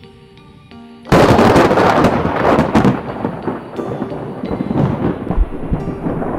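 Thunder: a sudden loud crash about a second in, then a long rolling rumble that slowly fades. Soft music plays before the crash and carries on faintly beneath the rumble.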